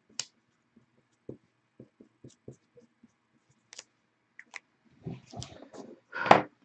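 Pen writing on paper, with scattered small taps and clicks on the table. A louder rustling clatter comes near the end.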